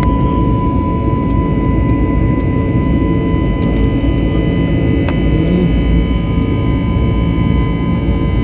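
Airliner cabin noise: a steady roar of engines and rushing air, with a steady high whine on top.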